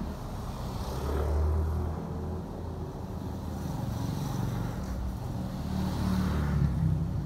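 Road traffic: a steady low engine rumble, with vehicles passing about a second and a half in and again near the end.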